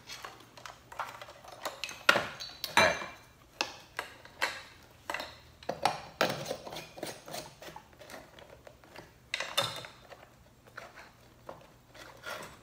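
Irregular small clicks and clinks of a glass light bulb and the lamp's metal parts being handled, as the bulb is fitted into the socket.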